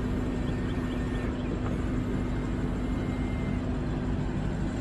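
Steady low hum and background noise, with a faint motor whine from the car's power side mirror folding in, then again briefly a second or so later as it unfolds.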